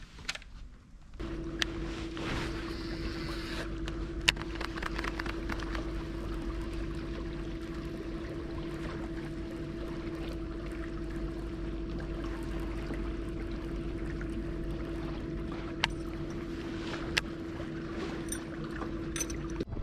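Small electric motor on a fishing kayak running with a steady whine over a low hum, starting about a second in and cutting off just before the end, with a few sharp clicks along the way.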